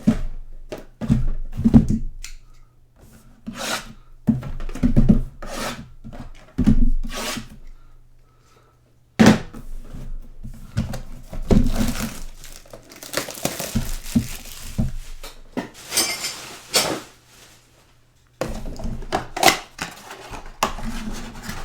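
Hands opening sealed boxes and packs of trading cards: cardboard and packs knocking and thudding on the table, with plastic and foil wrapping tearing and crinkling through the middle.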